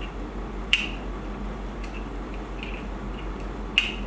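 Small clicks and ticks from handling a GoPro accessory case and fitting an adapter pin into it, with two sharper clicks, one about a second in and one near the end, over a low steady hum.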